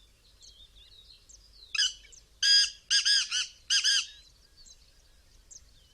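Black francolin calling: a short note about two seconds in, then four loud notes in quick succession. Faint chirps of small birds sound in the background throughout.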